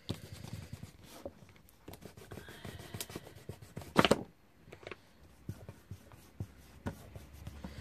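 Light rubbing and scratching of hands and card on paper over a tabletop, with a sharp knock about four seconds in as the card is handled on the table.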